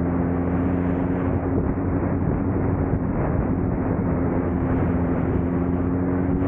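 Suzuki Katana motorcycle under way, its engine running at a steady note over a constant rushing noise. The pitch climbs a little near the end as it speeds up slightly.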